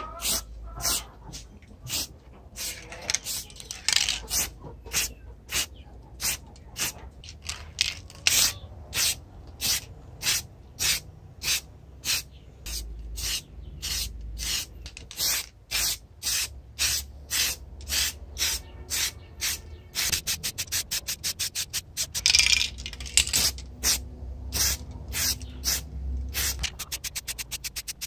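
Aerosol spray-paint can sprayed in short repeated bursts, about two a second. The bursts come faster and shorter after about twenty seconds and are very rapid near the end.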